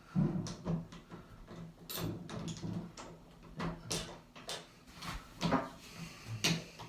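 Metal doorknob handle set being fitted together through a door: irregular clicks, taps and light rattles of the parts.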